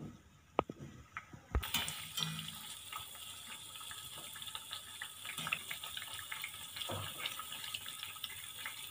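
Bread slices deep-frying in hot oil in a steel pan: a few clicks at first, then steady sizzling and crackling that starts about a second and a half in.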